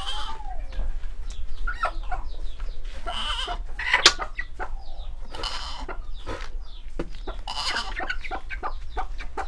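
Chickens clucking in many short calls, with a few harsh half-second squawk-like bursts. A sharp click about four seconds in.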